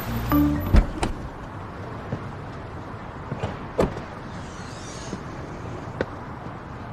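Steady low background noise with a few short light knocks and clicks, about a second in, near four seconds in and near six seconds in.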